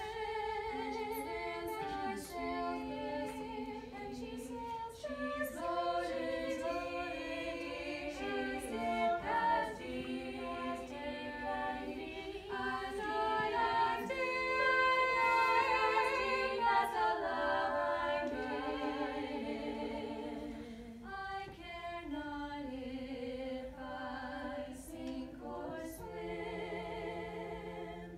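Four female voices singing a cappella in close harmony, holding sustained chords that move together. The singing swells loudest about halfway through, then softens.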